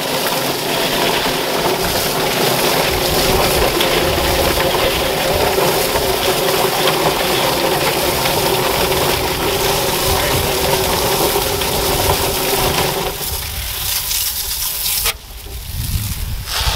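Yardbird electric chicken plucker running steadily, its spinning drum tumbling scalded chickens against the rubber fingers while a garden hose sprays water into it. The running sound fades near the end and cuts off sharply.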